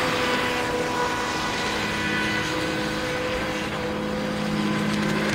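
Brushless electric motor of a radio-controlled Sea-Doo RXP model jet ski, running on a 4S LiPo, whining steadily under a hiss as the boat speeds across the water; the pitch dips slightly about a second and a half in.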